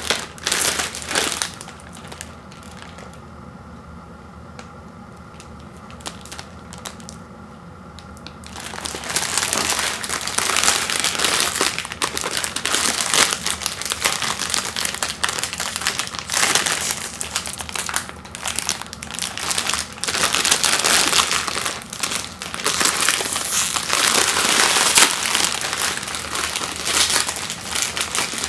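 Plastic packaging of Nongshim instant noodle packets crinkling and crunching as it is handled and opened, with a quieter pause of several seconds near the start.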